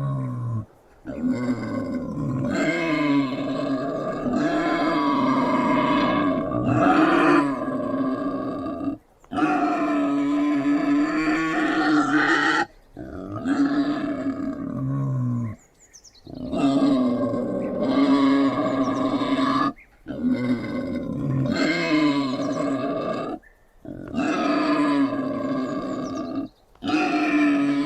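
Wild boar grunting and growling in a series of long pitched calls, each lasting a few seconds, with brief breaks between them.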